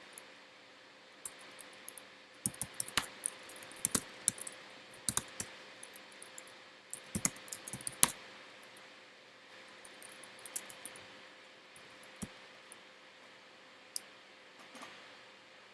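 Typing on a computer keyboard: irregular bursts of keystrokes, busiest in the first half and thinning to a few isolated clicks near the end.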